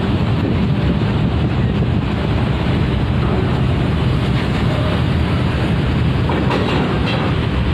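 Strong wind buffeting the microphone in a steady low rumble, over the diesel engines of buses running as they pull forward to board a ferry.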